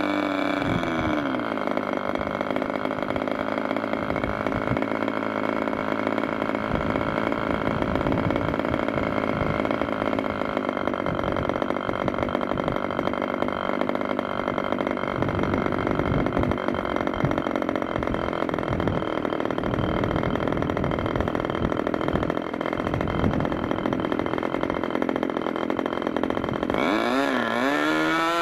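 Meteor 60 MkII two-stroke glow engine swinging a propeller: it is throttled back from high speed, its pitch dropping in the first second or two, and then idles at around 2,900 rpm. Near the end it is opened up again and the pitch climbs steeply as it revs toward full speed.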